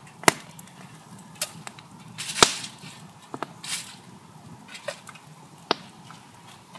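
Tin foil crinkling and rustling as it is spread and smoothed flat by hand, with a few sharp clicks and knocks in between.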